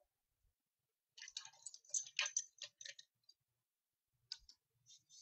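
Charcoal scratching on drawing paper: a quick flurry of scratchy strokes, a single click about four seconds in, then short, even strokes about three a second near the end.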